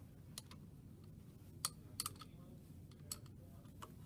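Light, sharp metallic clicks, about six spread over four seconds, from a wrench and the metal standoffs as the standoffs holding the motor and capacitor are loosened, over a faint low background hum.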